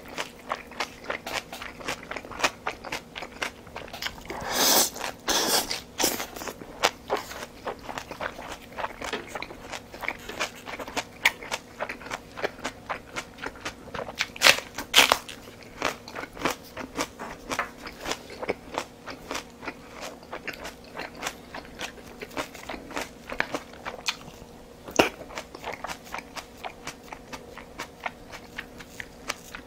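Close-miked chewing and biting of a person eating, a steady run of wet mouth clicks and smacks. There are a few louder, sharper crunchy bites about fifteen seconds in.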